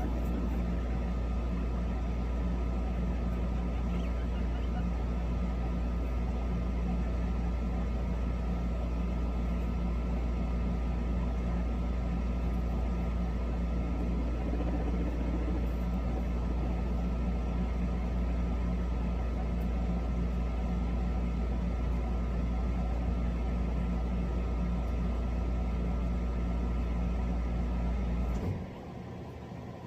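Steady low mechanical hum of a running motor, with a few steady tones above it, cutting off suddenly near the end.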